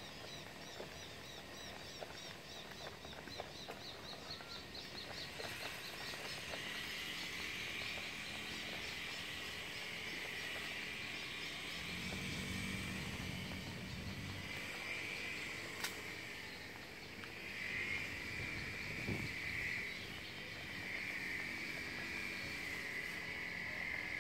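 Outdoor ambience with high animal calls: a fast run of repeated high chirps for the first few seconds, then a steady shrill drone that swells and eases. A single sharp click comes about two-thirds of the way through.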